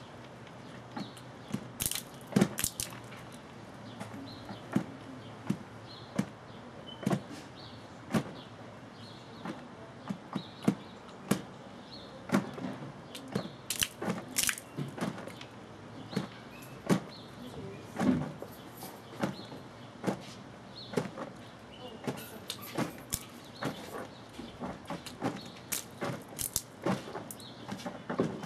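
Condensation-induced water hammer in water-filled plastic tubing fed with steam. Steam pockets collapse as they condense in the cooler water, and the water slugs slam together. The result is irregular sharp knocks and cracks, about one or two a second.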